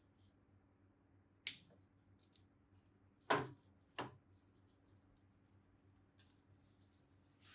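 Hand tools and small metal engine parts being handled and set down: three sharp clicks and knocks, the loudest about three seconds in, with faint ticking in between.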